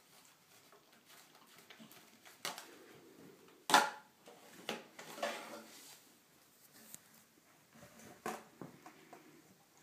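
A dog eating liver pâté from a foil tray and picking it up in its mouth: scattered knocks and crinkles of the foil tray, the loudest one about three and a half seconds in.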